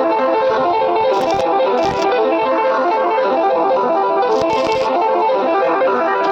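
Background music: quick, evenly repeating plucked-string notes. A few short hisses come through about a second, two seconds and four and a half seconds in.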